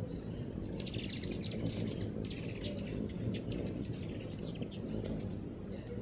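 Hummingbirds chittering: rapid runs of high, thin chips, in a burst about a second in and another about two seconds in, then scattered chips, over steady low noise.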